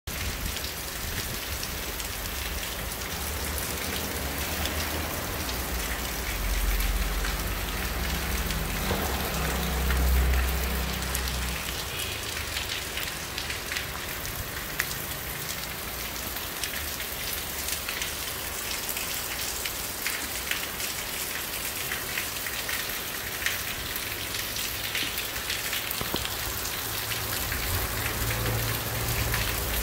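Steady downpour of rain falling on the street and rooftops. A low rumble swells from about six to twelve seconds in and again near the end.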